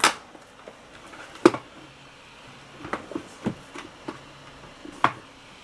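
Sharp clicks and knocks of a laptop power adapter and its connector being handled and plugged back in: about four distinct clicks, the loudest about a second and a half in and near the end.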